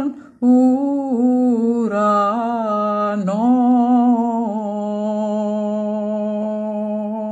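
Unaccompanied solo voice chanting the closing melisma of a Byzantine hymn in the first mode. After a short breath it sings a few ornamented turns, then settles about halfway through into one long held final note.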